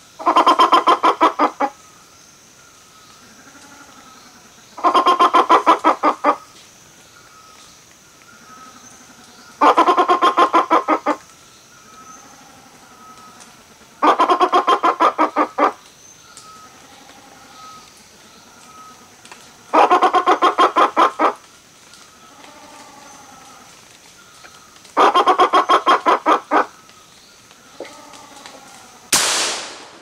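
Grey peacock-pheasant calling: a fast run of about ten harsh clucking notes lasting a second and a half, repeated six times at even intervals of about five seconds, with fainter notes in between. One sharp crack comes just before the end.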